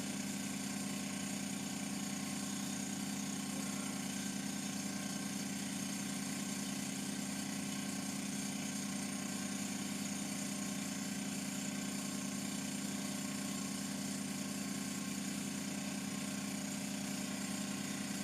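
TAIG milling machine running with a steady, unchanging motor hum.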